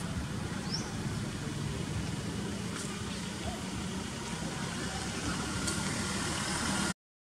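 Steady low outdoor background rumble, with a short high rising chirp about a second in. The sound cuts off suddenly near the end.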